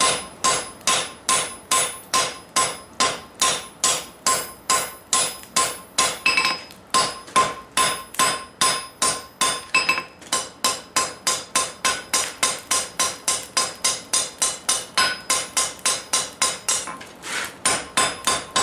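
Hand hammer striking the end of a red-hot steel bar held upright on an anvil, about three blows a second, each with a ringing note off the anvil, with brief pauses about six and ten seconds in. The bar is being upset to thicken it back up where material was lost.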